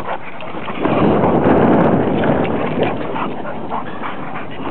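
A Plott hound and a boxer play-fighting: growling and short yips, with a loud, rough stretch of growling starting about a second in and lasting about a second.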